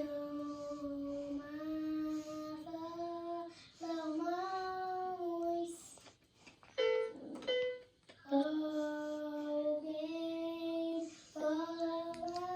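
A child singing long held notes in short phrases of a few seconds, with brief breaks between phrases.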